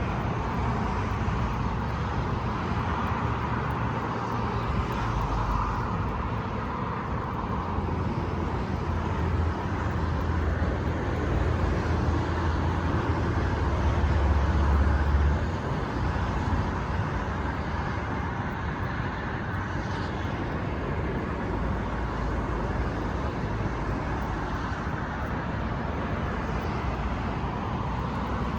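Steady low rumble with hiss, swelling louder from about nine seconds in and dropping back suddenly near fifteen seconds.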